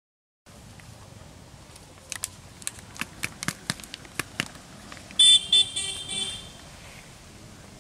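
A run of about ten sharp clicks or taps over a steady outdoor background, then a vehicle horn honked in four short blasts, the loudest sound here.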